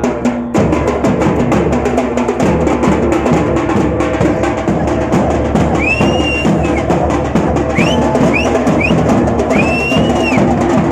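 Several large stick-beaten cylindrical drums played together in a fast, dense, continuous rhythm. A few short high tones rising and falling sound over the drumming about halfway through and again near the end.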